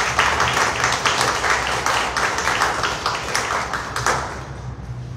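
Small audience applauding, the clapping dying away about four seconds in.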